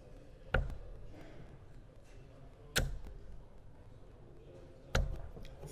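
Three steel-tip darts striking a Winmau Blade 6 sisal bristle dartboard, each a single sharp thud, about two seconds apart.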